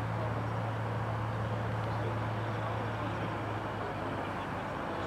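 American Champion Xtreme Decathlon's four-cylinder Lycoming engine and propeller running at low taxi power, heard from a distance as a steady low drone that eases slightly about three and a half seconds in.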